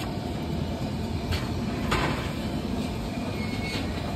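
Steady background noise of a busy street food stall, with a few sharp clicks; the loudest comes about two seconds in.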